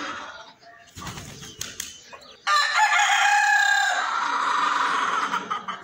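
A rooster crowing: one long, loud crow starts about halfway through and is held for about three seconds. It follows the fading end of an earlier crow and a few faint clicks.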